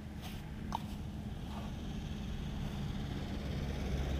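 Wind rumbling on the microphone, growing louder, with a couple of short scratchy grooming strokes on the horse's coat in the first second.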